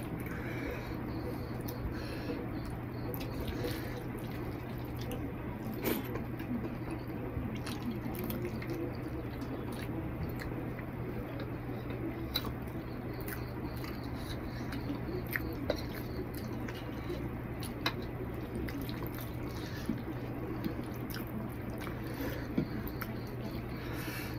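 Close-up eating sounds: chewing mouthfuls of rice and curry, and wet squishing as fingers mix rice with curry gravy on a plate, with scattered small clicks. A steady low hum runs underneath.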